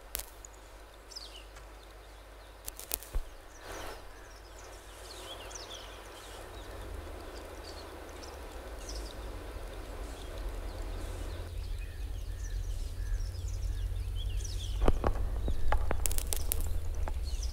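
Experimental field-recording piece: scattered short, falling high chirps over a low rumble that grows steadily louder. A hiss underneath stops abruptly about two-thirds of the way through, and sharp clicks and knocks come near the start and again near the end.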